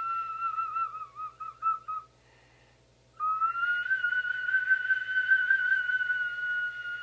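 Iwabue, a Japanese stone whistle blown across a hole in a natural stone: a long, pure, high note that wavers and breaks up about a second in, then stops for about a second. A second, slightly higher note then starts and is held steady.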